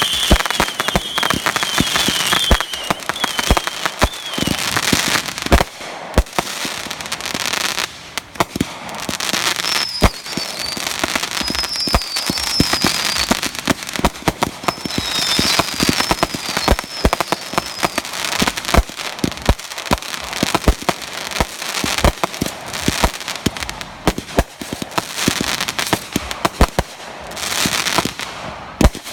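Consumer fireworks going off in quick succession: many sharp bangs and crackling throughout. High warbling whistles come in the first few seconds and again about ten to seventeen seconds in.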